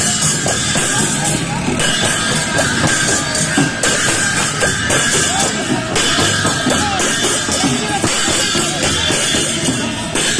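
Traditional barrel drums beaten and hand cymbals clashing as a procession marches, with a crowd's voices around them.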